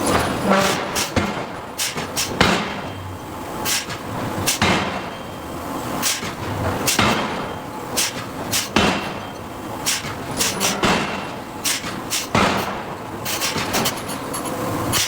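Hydraulic forging hammer striking steel: a series of heavy blows at uneven intervals, with lighter knocks between. The harder strikes ring out briefly after each hit.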